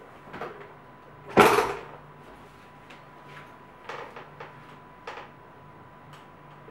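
A loud knock about a second and a half in, with a few lighter knocks and clicks around it, over a faint steady high tone.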